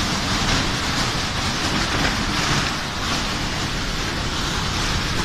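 Wind of a close tornado rushing steadily, a dense noise without breaks.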